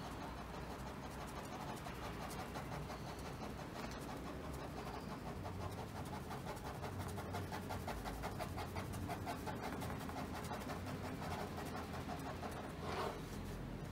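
Ballpoint pen shading on paper over a clipboard: rapid, short back-and-forth strokes scratching out parallel hatching lines.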